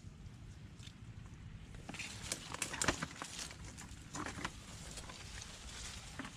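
Wet mud squelching and slapping as hands and a small digging tool work at a crab's burrow, in irregular bursts with the loudest cluster a little before the middle.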